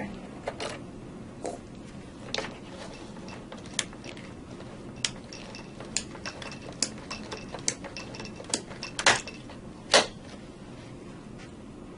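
An Eaton Series NRX circuit breaker being charged by hand, its spring-charging mechanism ratcheting: a series of sharp mechanical clicks at uneven intervals, the two loudest near the end.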